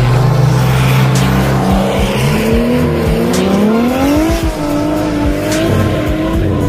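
Drift cars' engines revving on track, their pitch sagging and then rising again, with a clear climb about four seconds in.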